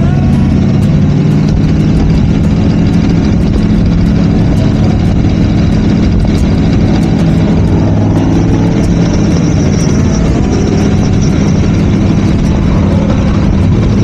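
Boss Hoss V8 motorcycles on the move in a group, their engines running with a steady low rumble.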